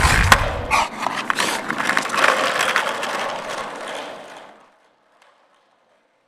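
Skateboard wheels rolling and clattering over asphalt, mixed with an English bulldog's heavy, laboured breathing. The sound fades out about four and a half seconds in.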